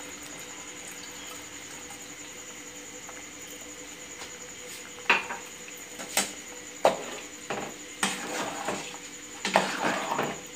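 Metal spatula knocking and scraping against a metal cooking pot while stirring a thick spinach and chicken curry. The first half is only a steady low hiss; then come single sharp knocks, about one a second, followed by quicker runs of scraping near the end.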